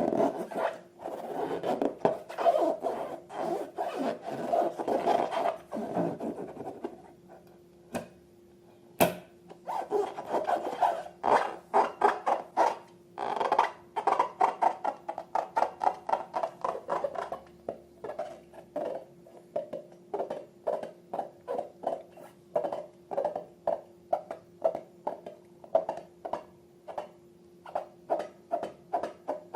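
Hands kneading and pressing slime: a dense run of sticky crackling and clicking, a short pause, then repeated short squelching presses at about two to three a second.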